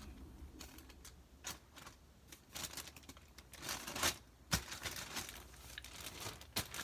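Crinkled foil packet and plastic toy packaging being handled, rustling and crinkling irregularly, with a few sharper crinkles along the way.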